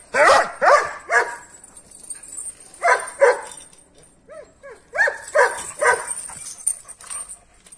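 Large Kangal-type shepherd dogs barking aggressively, worked up into a rage. The barks come in short bursts: three, then two, then a few higher yelps and three more barks.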